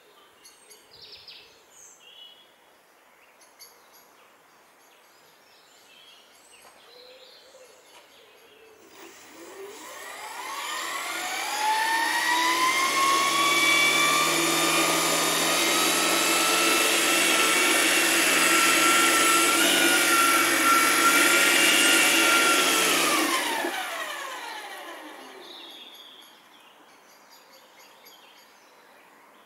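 Electric model helicopter (a Lark converted to electric, on a 4S battery pack) spooling up: a motor and gear whine with rotor noise rises in pitch about nine seconds in. It holds steady for about ten seconds, then winds down and fades.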